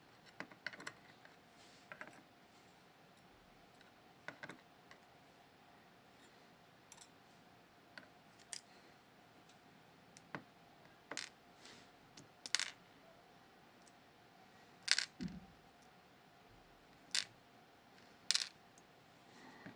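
Scattered small metallic clicks and taps at irregular intervals, from pins and springs being taken out of a row of a Miwa Kaba Star Orion dimple lock cylinder during disassembly.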